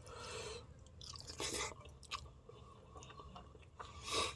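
Close-miked mouth sounds of a person chewing a mouthful of instant noodles and rice, with a few louder bites or smacks: one at the start, one about one and a half seconds in and the loudest near the end.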